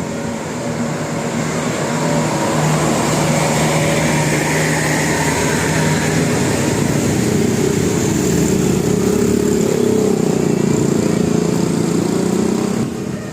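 Motor-vehicle engine noise running loudly and steadily as traffic passes close by; it drops away abruptly shortly before the end.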